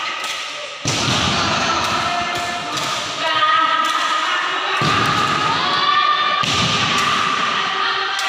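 Sepak takraw balls being struck and bouncing on the hall floor. Dull thumps come about a second in, near five seconds and around six and a half seconds, with people's voices calling out between them.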